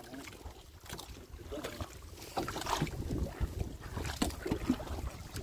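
Water splashing and sloshing with irregular knocks, and wind buffeting the microphone.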